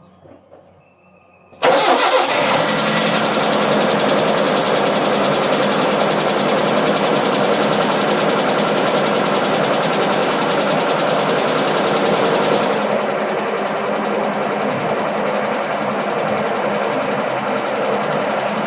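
Nissan D21 Hardbody pickup's engine starting about a second and a half in and then running steadily, the first start after a new fuel filter has been fitted. It gets a little quieter from about thirteen seconds in.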